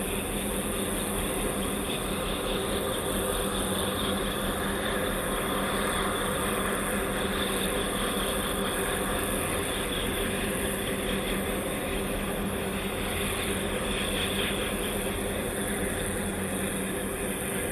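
Steady mechanical drone of a large container ship's engines and machinery passing, with a constant hum under a wash of noise.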